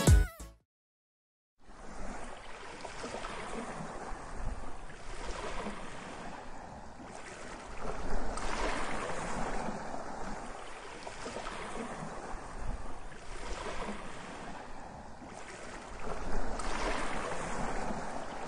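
Ocean surf: a steady wash of waves that starts about one and a half seconds in and swells roughly every four seconds.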